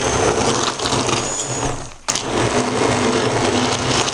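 Hand blender running in a bowl of citrus and garlic pulp, puréeing it until the garlic is smooth. It cuts out for a moment about two seconds in and starts again.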